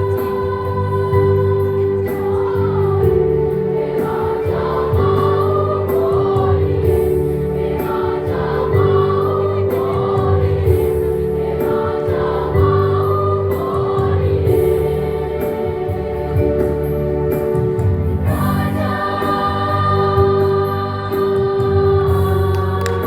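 School choir singing in parts: steady held chords in the lower voices while the upper voices move above them, changing to a fuller held chord near the end.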